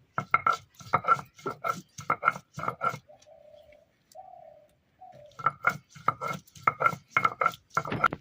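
Onion and garlic being ground on a grinding stone in rhythmic strokes, about four a second, stopping for a couple of seconds in the middle while a dove coos three times.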